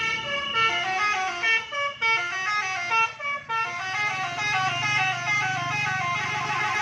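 Bus 'telolet basuri' multi-tone horn playing a fast tune: a quick run of stepped horn notes, several sounding together, with the low hum of the bus engine coming up about halfway through.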